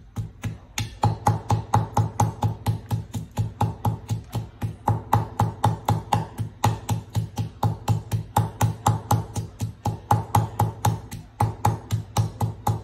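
Wooden pestle pounding garlic, red chili and spice paste in a wooden mortar: steady knocking, about four strokes a second.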